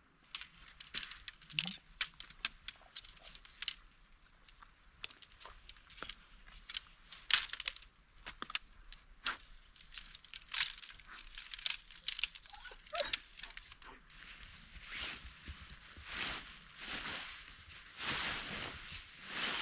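Snow crunching underfoot: irregular sharp crunches and crackles at first, then about two-thirds of the way through settling into steady walking footsteps, about one a second.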